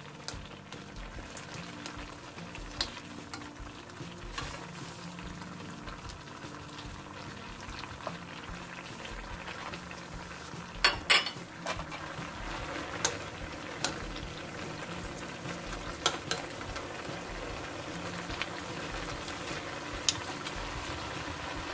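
Soy-sauce braising liquid bubbling and sizzling at a simmer in a wok around shredded pork and eggs, with small pops throughout. A few louder knocks come about eleven seconds in.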